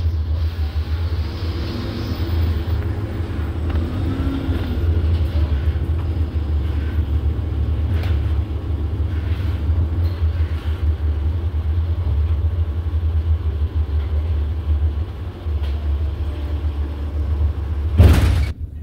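Inside an Iveco Urbanway city bus under way: a steady deep rumble from the engine and the road. Near the end there is one short, loud thump.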